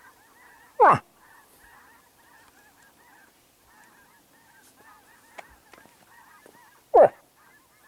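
A faint, unbroken chorus of many birds calling over one another, like a large honking flock. Two loud, short calls slide steeply downward in pitch, one about a second in and one near the end.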